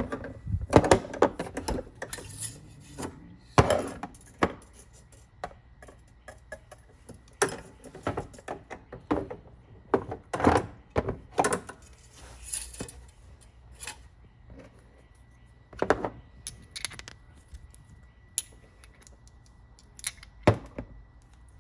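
Irregular metallic clicks, clinks and knocks as a spark plug socket and a new spark plug are handled and fitted into the engine bay.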